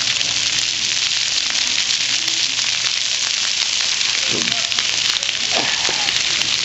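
Steady, dense hiss of falling water, with a couple of faint voices calling out about four and five and a half seconds in.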